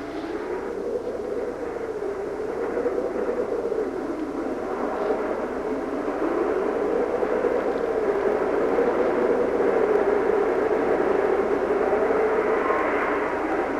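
Blizzard wind howling, a hollow moan that slowly rises and falls in pitch over a rushing noise, growing louder toward the end.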